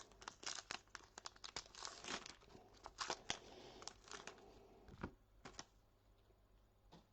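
Crinkling and tearing of a trading-card pack wrapper being ripped open: a dense run of sharp crackles that thins out after about five seconds.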